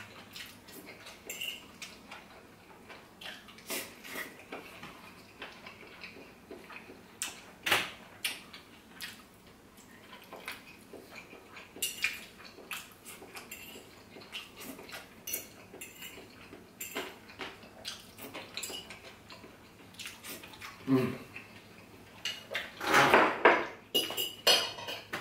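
A fork clinking and scraping against a plate as food is scooped and eaten, heard as scattered short clicks. There is a louder stretch near the end.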